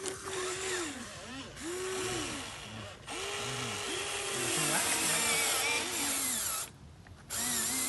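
Radio-controlled model excavator's electric motors whining, speeding up and slowing again in repeated short spells as its controls are worked. The sound drops away briefly about seven seconds in.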